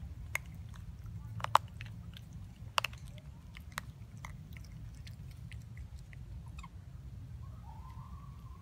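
Mouth clicks and smacks from long-tailed macaques, a handful of sharp ones with the loudest about a second and a half in, over a steady low rumble. Near the end a faint short call rises and falls.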